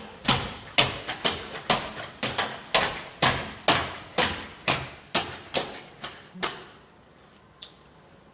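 A series of sharp knocks, about two a second, each with a brief ringing tail, dying away after about six seconds with one last faint knock.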